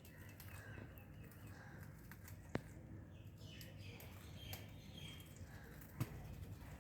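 Parakeets giving faint short chirps, with two sharp clicks, one about two and a half seconds in and one about six seconds in.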